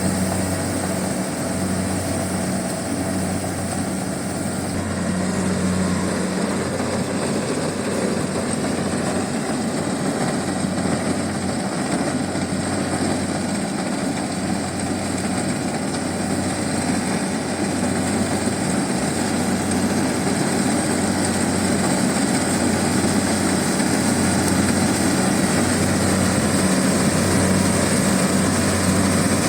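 Kubota DC70 rice combine harvester running steadily: a diesel engine hum mixed with a broad mechanical clatter-noise and a thin, high, constant whine.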